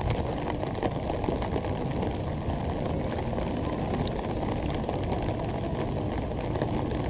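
Steady low rumble with a light hiss, no single event standing out: outdoor trackside background noise while an electric commuter train is still far off down the line.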